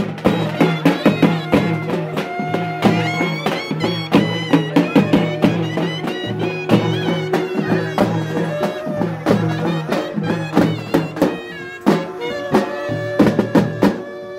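Live traditional procession music: a reed wind instrument plays a melody over a steady drone, with drums beating a fast, dense rhythm.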